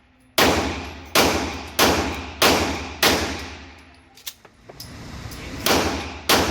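Pistol shots from a CZ75-style semi-automatic handgun at an indoor range: a string of five quick shots about two-thirds of a second apart, a pause of about two and a half seconds, then two more. Each shot echoes off the range walls. Some rounds are light on powder but still cycle the action.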